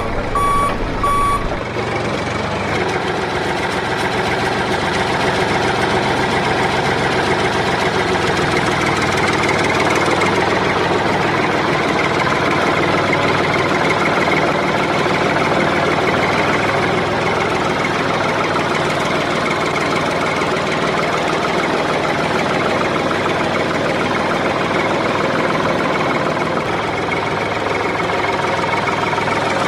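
A reversing alarm beeps a few more times and stops about a second and a half in. After that a vehicle engine runs steadily.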